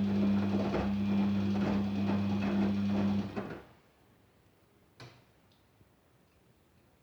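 Daewoo DWD-FT1013 washing machine filling for the rinse: water rushing in over the steady hum of the inlet valve, which cuts off a bit over three seconds in. A single sharp click follows about five seconds in.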